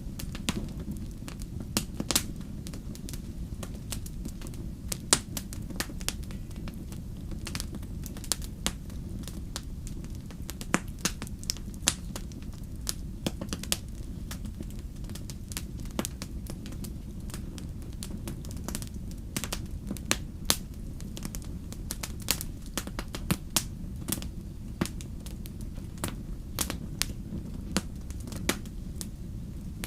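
Wood fire burning in a fireplace: irregular sharp crackles and pops, a few much louder than the rest, over a steady low rumble.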